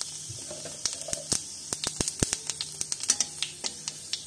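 Panch phoron (five-spice seeds) frying in hot mustard oil in a kadai: irregular sharp pops and crackles over a steady sizzle. A spatula starts stirring near the end.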